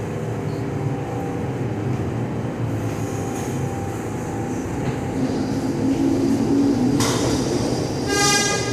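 R46 subway train pulling out of the station. It rumbles steadily, then its motors whine up in pitch as it gathers speed, and a hiss of wheel and air noise rises about seven seconds in. Near the end there is one short horn blast.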